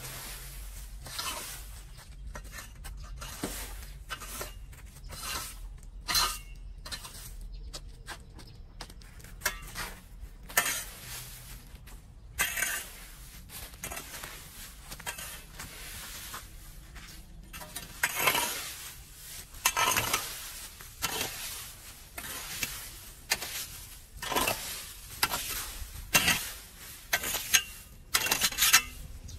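A metal-tined rake dragging dry leaves and twigs across concrete pavement: irregular rustling strokes with the tines scraping and clinking on the concrete. The strokes come louder and closer together in the second half.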